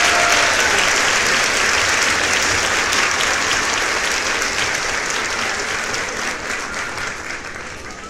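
A crowd of guests applauding, a dense steady clapping that gradually fades away over the last few seconds.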